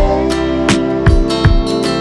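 Background music: strummed guitar with a steady rhythm.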